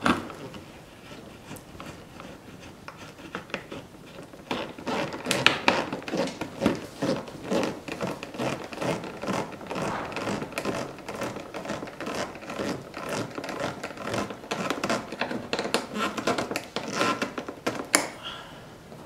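Irregular clicking and scraping from hand work on the plastic front splitter and air dam under a C7 Corvette. It runs from about four seconds in until just before the end, with one sharp click at the start.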